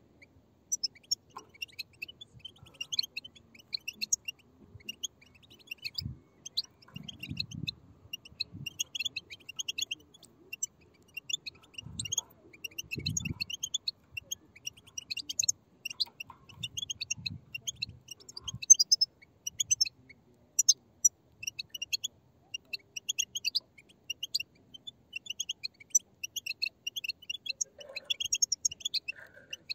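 A group of young European goldfinches twittering together: a dense, unbroken stream of short, high chirps. There are a few soft low bumps in the background.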